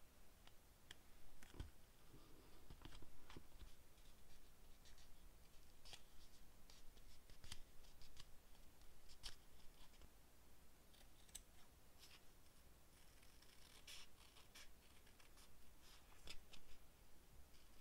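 Quiet paper crafting sounds: paper being handled and rustled, with scattered short, crisp clicks and taps from tweezers and paper.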